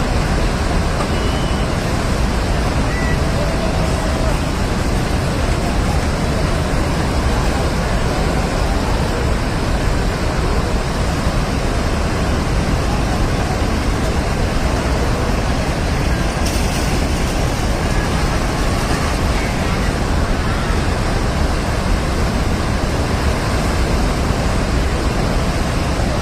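Loud, steady rushing of a flash-flood torrent of muddy water, mud and boulders.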